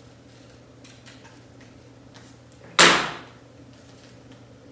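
Paper collage pieces being handled on a tabletop: quiet faint rustles, then one sudden loud noise about three seconds in that fades within half a second.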